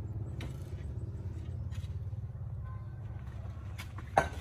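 An engine running steadily with a low, even drone, under a few light knocks, then a sharper clank near the end as a shovel works soil and broken brick.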